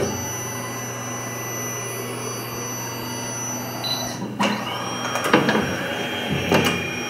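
Overhead book scanner running its motor, a steady hum with a high whine, for about four seconds, then stopping abruptly. After it a few clicks and knocks follow over a fainter high whine.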